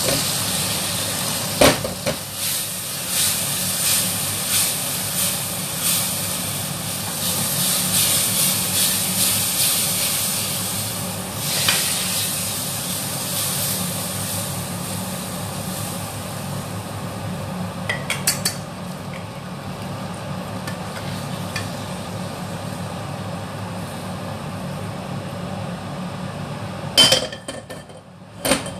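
Snap peas and Chinese sausage sizzling in a hot wok while a metal spatula stirs and scrapes against the pan, over a steady low hum of a kitchen range hood fan. Near the end, two sharp clatters of the spatula on the wok as the food is tipped out onto a plate.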